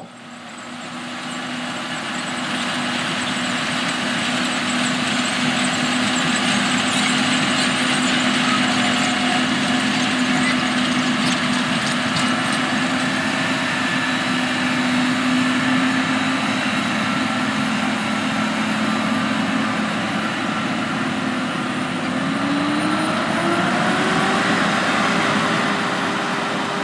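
New Holland T8.390 tractor engine running steadily while pulling a no-till planter through the field. About 22 seconds in, the engine note rises and holds at a higher pitch.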